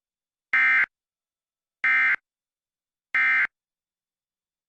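Emergency Alert System end-of-message data bursts: three short, identical buzzy digital squawks about 1.3 seconds apart, the coded signal that closes the alert.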